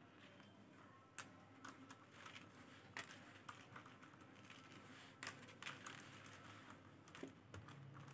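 Faint, irregular clicks of faceted beads knocking together as a beaded bag is handled and thread is pulled through it.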